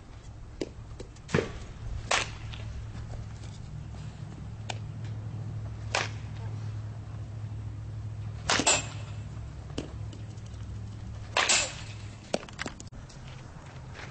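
Sharp cracks of a softball bat hitting balls during batting practice, about five hits spaced a few seconds apart, the two loudest in the second half.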